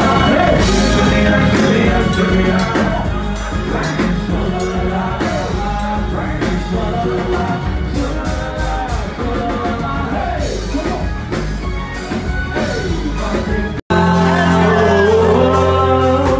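Live band playing loud music with a man singing into a microphone and an electric guitar. The sound drops out for an instant about 14 seconds in and then carries on.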